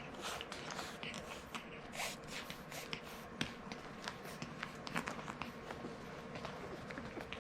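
French bulldog puppy snorting and snuffling, with irregular small clicks and rustles as it moves; the sharpest clicks come about three and a half and five seconds in.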